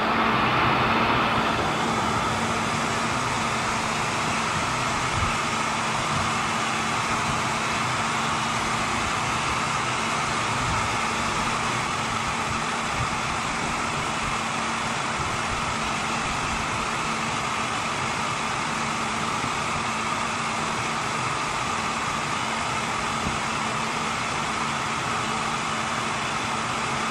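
Heat gun blowing steadily, with a faint motor hum under the rush of air, warming the seat's vinyl so it can be stretched into place.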